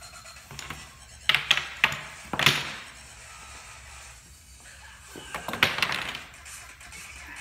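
Loud thumps and bangs, several in quick succession about a second in and another cluster near six seconds, over faint background music.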